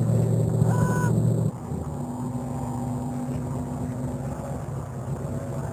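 Motorboat engine running steadily on the river. It drops suddenly to a quieter, steady hum about one and a half seconds in.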